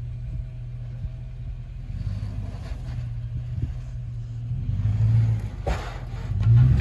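2003 Toyota 4Runner's 4.7-litre V8 running at low revs while crawling over rock, then revving harder in two short pushes under load about two-thirds of the way in and near the end. A brief sharp knock falls between the two pushes.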